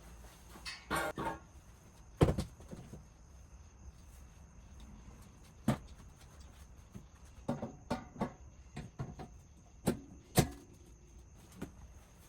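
Roof cargo rack bars and sections being handled and fitted together: scattered knocks and clanks, the loudest about two seconds in, with another pair of sharp knocks near the end.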